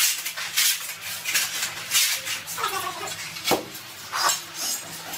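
Steel trowel scraping tile adhesive across the floor and tiles in a run of short strokes, about one or two a second, with a sharper knock near the middle.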